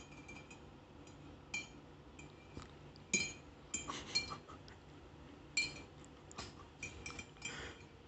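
A metal spoon clinking against the inside of a ceramic mug as a green parakeet sitting in the mug shifts it with its beak. There are about a dozen light, irregular clinks, some in quick clusters.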